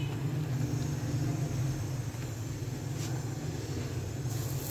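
Steady low rumble, with a faint tap about three seconds in.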